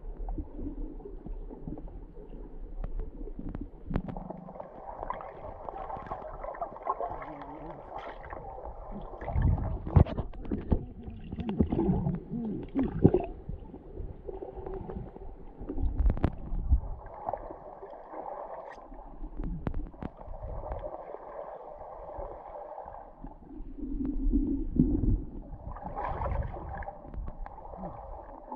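Underwater sound picked up by a submerged action camera: muffled rumbling and gurgling water movement, swelling and fading, with scattered sharp clicks and knocks.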